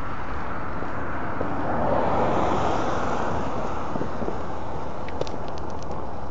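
A car driving past on a street, its tyre and engine noise swelling about two seconds in and easing off as it moves away, over steady wind rumble on the microphone. A few faint high ticks near the end.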